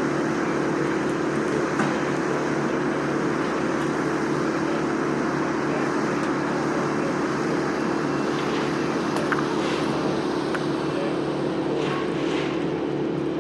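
An engine running steadily: a continuous, even drone.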